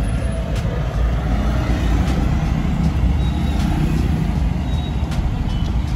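Steady low vehicle rumble, with a few faint clicks of plastic dashboard trim being pressed into place.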